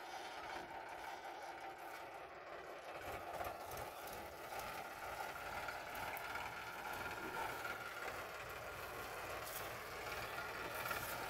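Powertrac 439 tractor's diesel engine running steadily while pulling a tillage implement through a sugarcane field. It grows a little louder about four seconds in.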